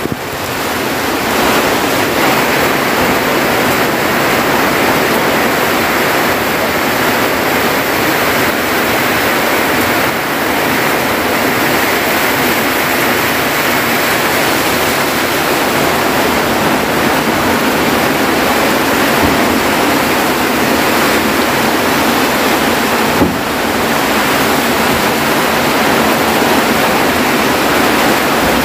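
Heavy storm rain pouring steadily on a forest hut. A single short knock is heard about three-quarters of the way through.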